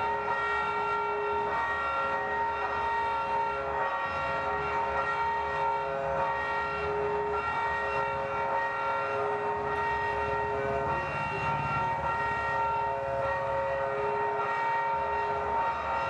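A sustained drone of several steady held tones sounding together like a chord, with one lower note cutting out and coming back every second or two over a faint low rumble.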